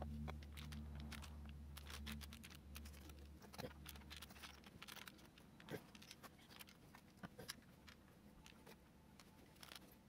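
Faint scattered clicks and light taps of coin tubes and coins being set down onto small aluminium chip heatsinks on a graphics card, over a low hum that drops away about three and a half seconds in.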